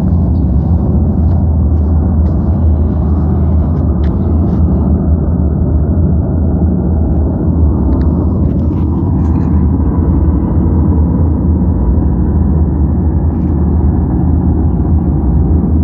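A steady, loud, low rumbling drone, strongest in the deep bass, with faint scattered clicks over the first half.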